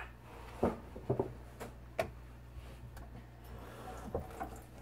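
Scattered light knocks and clicks, about half a dozen, the sharpest about two seconds in, over a low steady hum.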